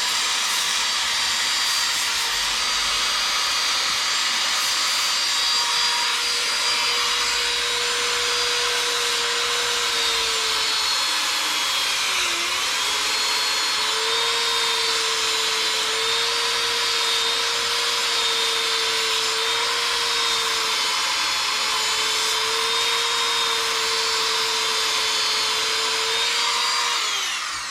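Bench grinder running steadily while a lathe scraper is sharpened on it, a high grinding hiss over the motor's hum. The hum's pitch dips briefly about twelve seconds in. Near the end the grinder is switched off and winds down.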